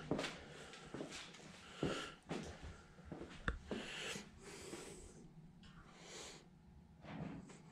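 Faint breathing through the nose, mixed with soft knocks, rustles and a sharp click from a handheld camera being carried and turned.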